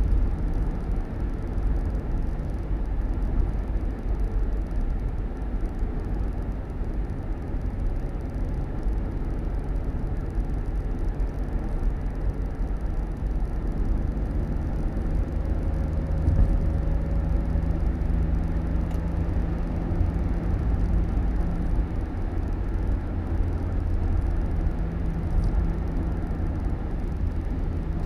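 Steady low rumble of a vehicle in motion, with engine and road noise and no sudden events.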